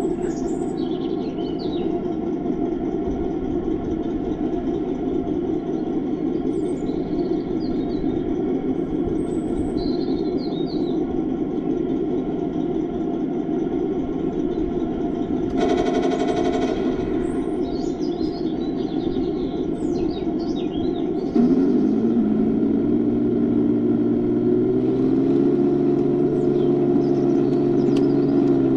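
Heng Long RC tank's onboard sound unit playing a simulated tank engine through its small speaker while the tank drives, a steady rumbling hum. About halfway through a brief buzzy effect lasts a second or so, and about three-quarters in the engine note rises and gets louder, like revving up to a higher speed. Faint bird chirps are heard now and then.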